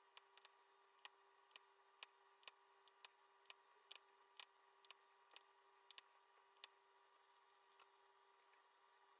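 Faint, sharp clicks, about two a second and unevenly spaced, of a diamond painting drill pen pressing resin drills onto the sticky canvas; they thin out in the last couple of seconds. A faint steady hum runs underneath.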